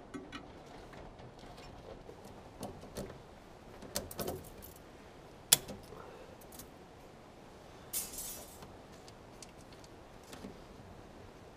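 Scattered clicks and light knocks of small objects being handled, with one sharp click about five and a half seconds in and a brief rustle near eight seconds.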